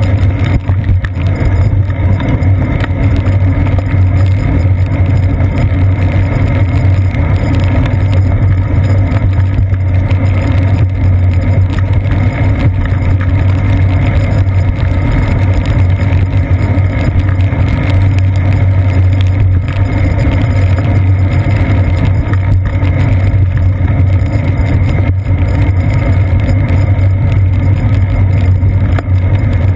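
Road and wind noise of a bicycle ride on wet pavement, picked up through a seat-post-mounted GoPro Hero 2: a loud, steady low drone that never lets up.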